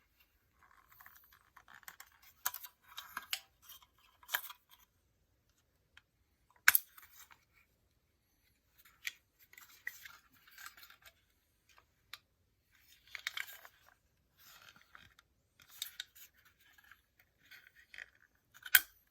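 A fire alarm being taken apart by hand: scattered clicks, scraping and rattling of small parts. Two sharp clicks stand out, one about a third of the way in and one at the very end.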